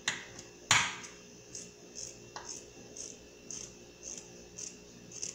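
Scissors snipping through a folded T-shirt, a regular run of small cuts about two a second, with a sharp click just under a second in.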